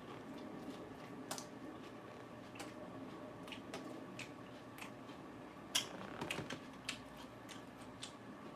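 Faint, irregular crisp crunches of raw lettuce being chewed. The loudest crunch comes near the middle, followed by a short cluster of smaller ones.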